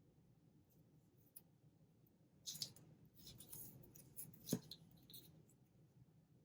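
Quiet handling of paper, stickers and washi tape: a few faint crinkles and rustles, with one sharp click about four and a half seconds in.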